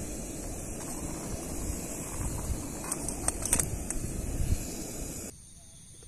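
A camping gas stove burning under a kettle of water: a steady rushing noise, with a few light clicks at the kettle lid about three seconds in. The noise cuts off abruptly about five seconds in, leaving a quieter outdoor background.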